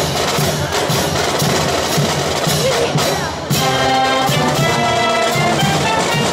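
Marching band playing: drums and percussion drive the first half, then about three and a half seconds in the brass and saxophones come in on held chords over the drumming.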